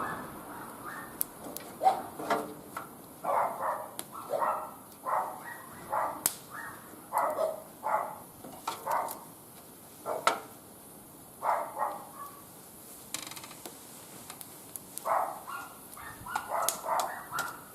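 A dog barking in irregular runs of short barks, with a pause of a few seconds past the middle. Scattered sharp pops from a wood fire crackling come through underneath.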